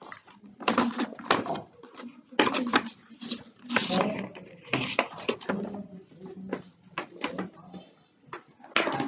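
Paper being handled and folded by hand, rustling and crinkling in short irregular bursts, with bits of a boy's quiet speech.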